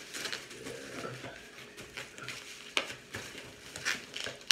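Plastic bubble wrap being pulled and unwrapped by hand, crinkling and rustling irregularly, with a few sharp clicks.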